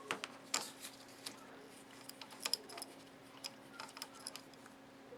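Faint, irregular clicks and ticks of a small hand tool working on the plastic nuts that hold a slit lamp's dimmer circuit board, over a faint steady hum.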